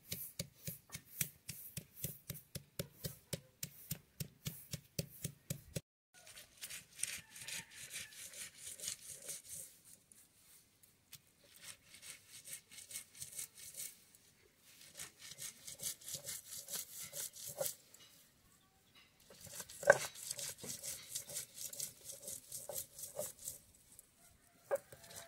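Stone roller crushing and grinding food on a flat stone grinding slab (sil-batta). It starts with quick, even strokes, about four a second. After about six seconds it turns into longer scraping rubs back and forth with short pauses, and one sharp knock of stone on stone comes about twenty seconds in.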